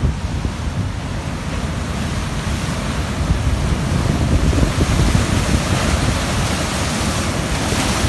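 Heavy ocean surf breaking on a rocky shore, a continuous roar that builds, then foaming water washing over the rocks near the end. Wind buffets the microphone.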